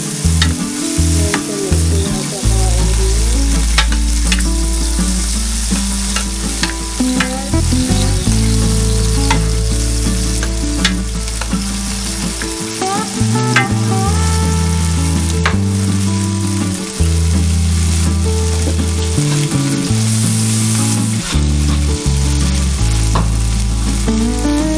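Onion, garlic and tomato sizzling in hot oil in a nonstick skillet, stirred with a kitchen spoon that clicks and scrapes against the pan now and then. A steady low hum runs underneath.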